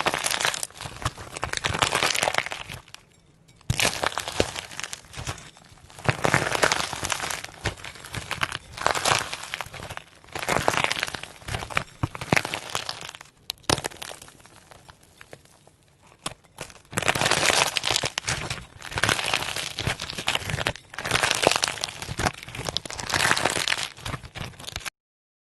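Clay being cracked and broken, crackling and crunching in bursts of a second or two with short quieter pauses between them. The sound cuts off suddenly near the end.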